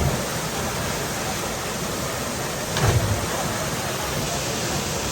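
Waterfall pouring into a pool, a steady rushing noise, with one brief low thump about three seconds in.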